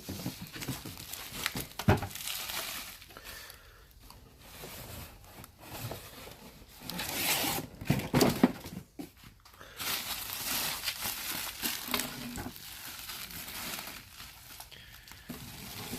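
Packaging crinkling and rustling as a boxed canister filter is unpacked, in irregular handling bursts with a few sharp knocks.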